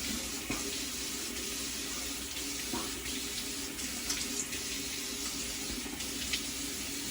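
Tap water running steadily into a bathroom sink, with a few faint light knocks.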